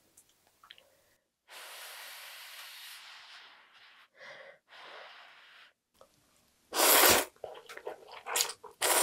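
Ramen noodles being slurped: a long hissing draw of air about a second and a half in, then shorter slurps, with the loudest, sharpest slurps near the end.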